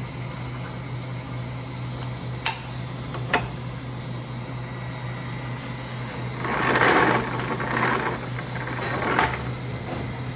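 Metal differential parts being handled and fitted during assembly: two sharp clicks, then a few seconds of rough scraping and rattling ending in another click, over a steady low hum.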